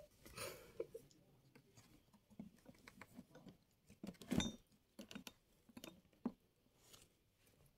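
Faint scattered taps and rustles of kittens moving on a tabletop and being handled, with one louder brief rustle about four seconds in.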